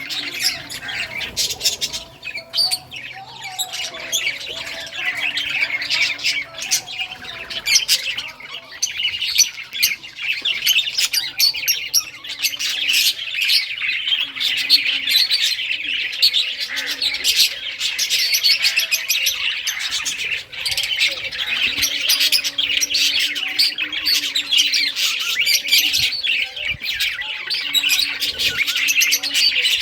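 Several budgerigars chirping and chattering nonstop, a dense run of rapid high chirps with occasional squawks.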